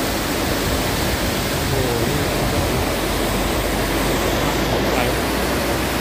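Violent storm: a steady, loud rush of wind and heavy driving rain.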